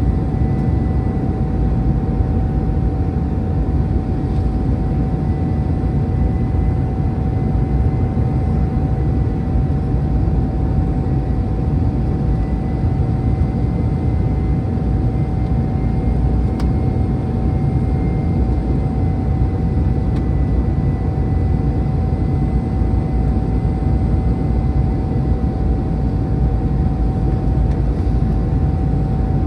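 Airbus A319-100 cabin noise on approach, heard from a window seat over the wing and engine: a steady rumble of engine and airflow with a constant hum running through it.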